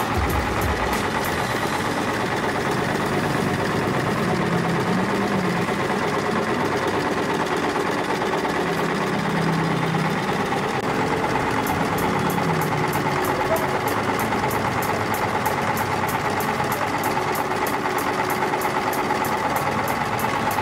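Riccar 987 portable electric sewing machine running steadily while stitching a decorative pattern, its needle mechanism making a fast, regular ticking.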